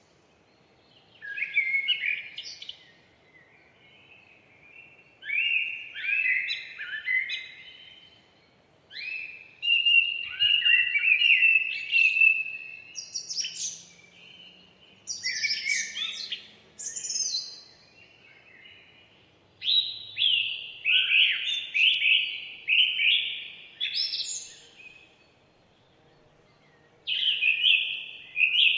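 Songbirds singing in a forest: repeated song phrases of rapid chirps and whistled glides, each lasting one to three seconds, separated by short pauses.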